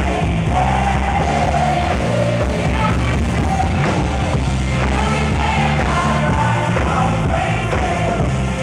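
Live worship rock band playing, with drums, electric and acoustic guitars and keyboard, and a lead singer singing over it.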